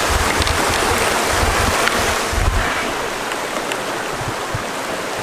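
Wind buffeting the microphone in irregular low thumps over a steady rushing hiss; the buffeting eases off about three seconds in.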